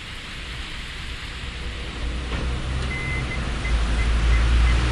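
Hyundai Solaris 1.6-litre engine pulling in gear against the held brake, with a low hum and rumble that grows louder from about two seconds in. The noise is made by the rear lower powertrain mount rubbing against a crankcase guard that was bent when the car scraped a deep snow rut.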